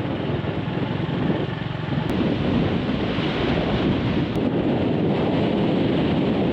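Wind buffeting the microphone on a moving motorbike, with engine and road noise underneath as a steady, even rush.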